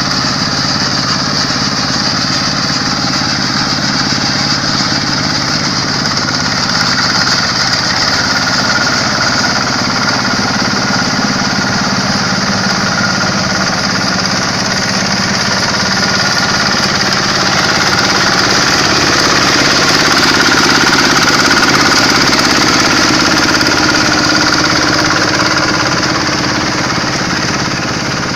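Quick H-140R combine harvester running, its Kubota diesel engine and the machinery making a steady drone with a faint high whine through it. It grows a little louder partway through.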